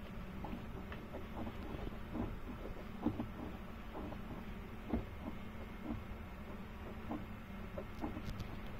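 Scattered small clicks and light knocks from hands working the generator's fuel tap inside its open compartment, over a steady low hum.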